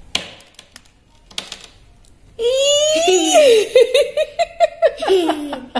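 A young girl giggling, high-pitched and bubbling in quick bursts, starting a little over two seconds in. This comes after a couple of soft clicks as the handle of a storage lid is lifted.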